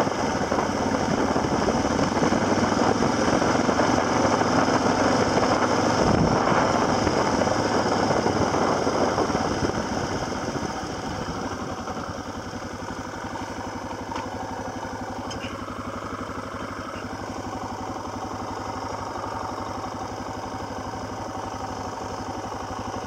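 Small off-road vehicle's engine running as it is ridden along a snowy dirt track. It runs harder for about the first ten seconds, then eases off to a quieter, steady run.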